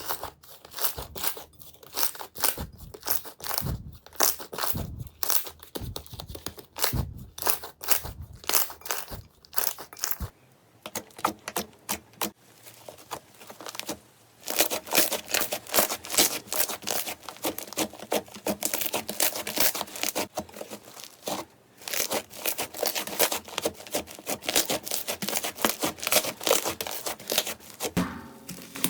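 Slime being squeezed and worked by hand, giving a stream of crackling, popping clicks. The pops are sparser, with some low squishy thumps, in the first third, and become a dense, continuous crackle from about halfway through.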